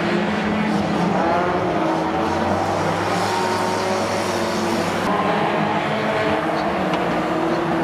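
Several junior banger race cars running together in a pack, their engines revving up and down with overlapping, shifting pitches over a steady din.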